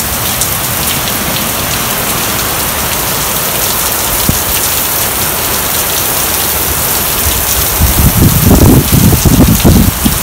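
Heavy rain pouring down, a dense steady hiss with scattered sharp drop ticks. A louder low rumble swells about eight seconds in and lasts about two seconds.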